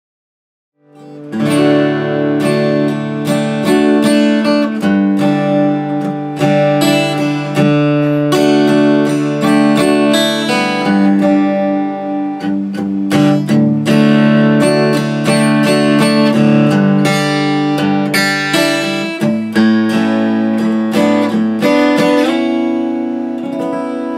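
Martin D-41 steel-string dreadnought acoustic guitar being played: a continuous run of picked chords with notes ringing into each other, starting about a second in.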